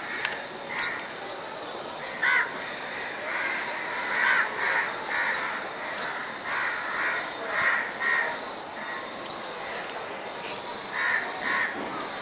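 Crows cawing repeatedly in short runs of harsh calls, over a steady background hiss.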